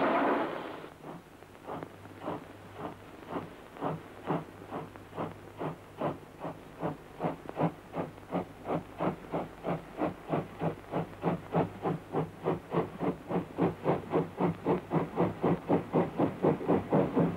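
Steam locomotive pulling away: its exhaust chuffs start slow and spaced, then come steadily faster and louder as it gathers speed, over a faint steady low hum.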